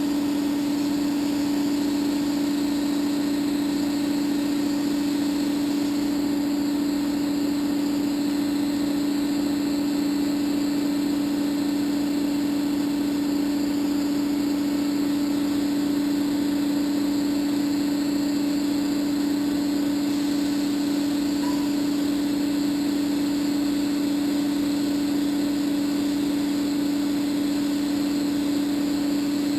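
Exhaust fan running in a makeshift paint booth, a steady hum at one strong pitch that stays unchanged, a little loud.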